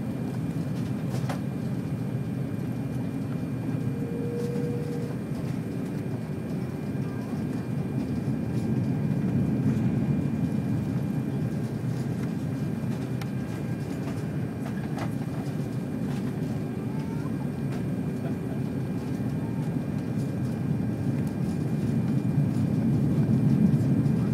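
Steady low rumble of an airliner's engines and slipstream heard inside the passenger cabin during the landing approach, swelling slightly twice. A brief faint tone sounds about four seconds in.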